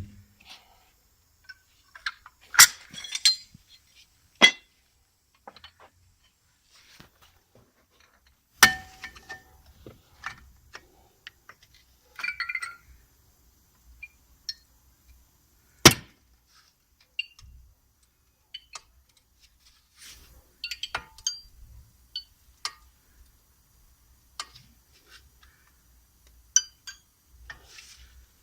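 Metal tools and brake parts clinking and knocking as they are handled, in scattered irregular strikes. The loudest are sharp hits about 3, 9 and 16 seconds in, some ringing briefly.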